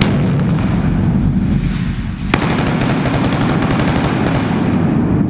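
Heavy gunfire at close range indoors, a dense, continuous run of rapid shots, with a sharper, louder crack at the start and another about two seconds in.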